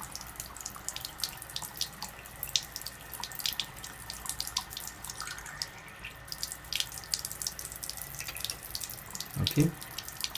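Water running from an under-sink alkaline water ionizer's faucet into a container, a steady hiss with many small splashes; the ionizer is set to its highest alkaline level.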